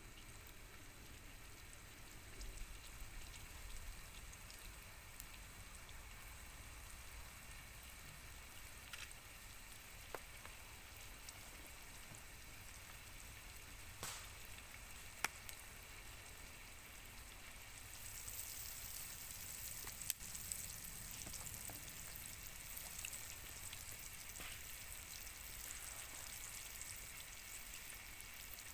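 Food frying in a hot pan: a steady sizzle that grows louder and hissier about eighteen seconds in, with a few sharp pops.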